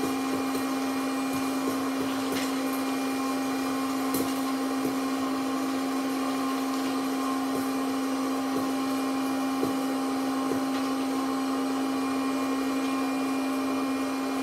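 Small red hot-air popcorn machine running, its fan motor giving a steady hum, with a few faint clicks of kernels popping.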